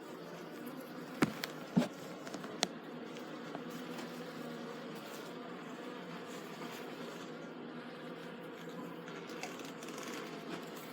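Honey bees buzzing in a steady hum around an opened hive, with three sharp knocks in the first few seconds.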